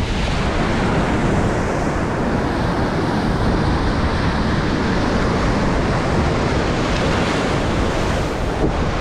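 Wind buffeting the microphone over surf washing on a rocky sea shore: a loud, steady rush with a heavy low rumble.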